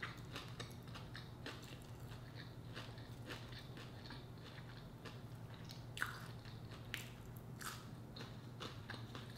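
Close-up eating sounds: chewing, and fingers picking apart a crispy fried tilapia, heard as soft irregular clicks and crackles, with a few sharper crackles between about six and eight seconds in.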